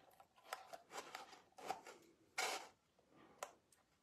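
Faint rustling and light clicks of card stock and adhesive tape strips being handled and pressed with a small pick tool. There is a louder papery scrape about two and a half seconds in.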